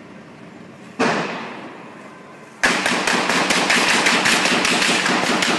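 A single gunshot about a second in, echoing and dying away, then from about two and a half seconds a sustained burst of rapid automatic gunfire, shot after shot in quick succession for about three seconds.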